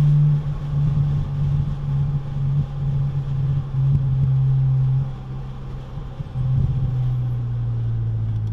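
2006 BMW Z4 M's S54 straight-six with a muffler delete, droning steadily inside the cabin. Its pitch sinks slowly as the car slows.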